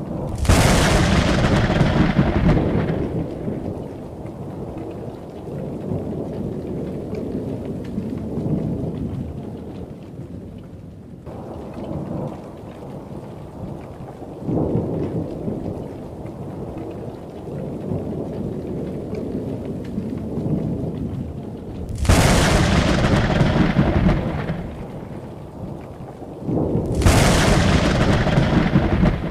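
Thunder from a thunderstorm: three loud crashes, one at the start, one about 22 seconds in and one about 27 seconds in, each dying away into low rumbling. Steady rain falls throughout, with fainter rumbles of thunder between the crashes.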